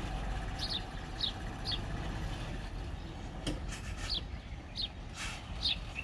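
Heavy earthmoving machine's engine running low and steady, with a small bird giving short falling chirps over it, three in quick succession and then three more a couple of seconds later.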